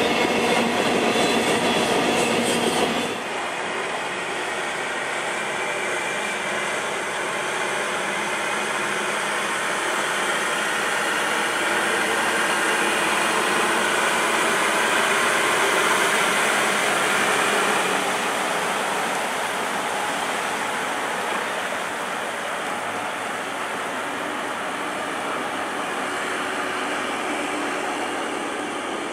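Freight train of trailers on flatcars rolling past with a steady rail clatter, which cuts off abruptly about three seconds in. Then a steady rushing and splashing of floodwater pushed aside by a backhoe loader wading through it.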